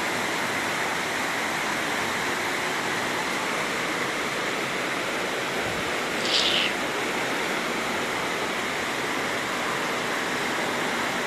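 Floodwater rushing through a flooded street, a steady, even rush of water. A brief louder hiss comes about six seconds in.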